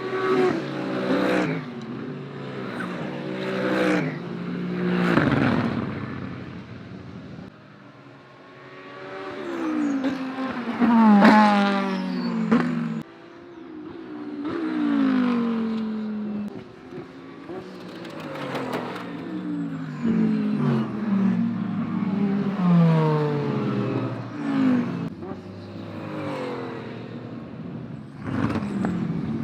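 A string of GT3 race cars going past at speed, one after another. Each engine note runs high and then drops in pitch as the car passes, so the loudness swells and fades every few seconds.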